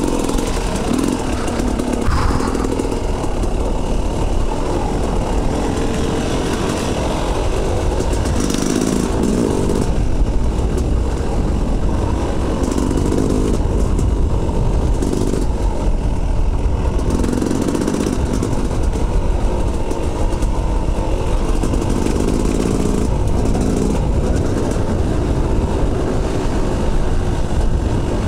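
Enduro dirt bike engine running under load on a rough trail, the revs rising and falling every few seconds as the throttle is opened and closed.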